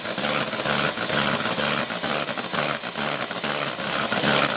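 Electric hand mixer running steadily, its beaters whisking eggs and caster sugar in a bowl for a sponge mix.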